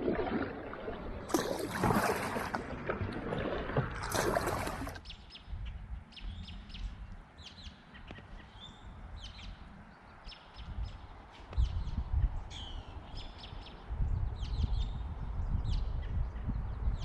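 Water splashing around a kayak for about the first five seconds, then small birds chirping in short, repeated notes over bouts of low wind rumble.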